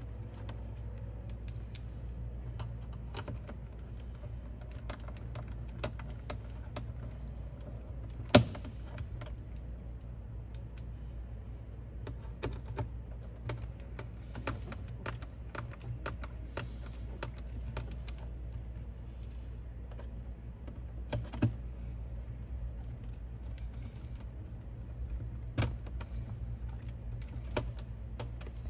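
Scattered small clicks and taps of screws being driven in by hand and plastic trim being handled in a car's center console, with one sharp knock about eight seconds in and a few louder clicks near the end, over a steady low hum.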